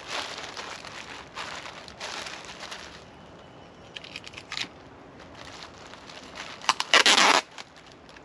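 Packaging being handled during unboxing: crinkling and rustling of wrapping, a few light clicks in the middle, and a louder burst of crinkling near the end.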